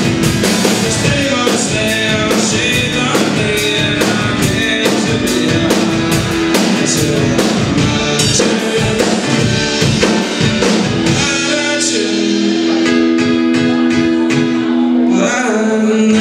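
A song played live on acoustic guitar and drum kit. The drums keep a steady beat for about eleven seconds, then the kick and snare mostly drop out, leaving held guitar chords ringing over light cymbal hits, and the beat comes back in near the end.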